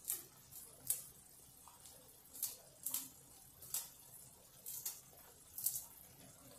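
Kitchen scissors snipping a green chilli into a pan: about eight short, crisp snips at uneven gaps.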